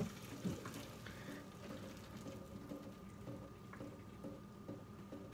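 Faint trickle of pasta cooking water draining into a kitchen sink as a pot is emptied, thinning out after a second or so, with a few light knocks and a faint steady high tone.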